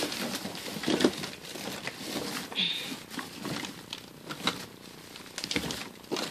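Off-camera rummaging: objects being handled and moved about, giving scattered knocks, clicks and rustles, with a brief high squeak a little over two and a half seconds in.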